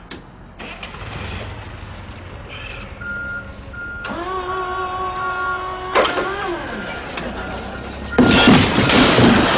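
Forklift running and reversing, its warning beeper sounding in short repeated high beeps, with a steady motor whine that glides down in pitch about six seconds in. A loud burst of noise comes in near the end.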